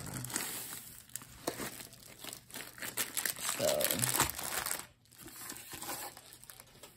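Plastic packaging crinkling and rustling in irregular bursts as hands handle a rolled diamond-painting kit, its white plastic wrap and the clear plastic bag of drill packets.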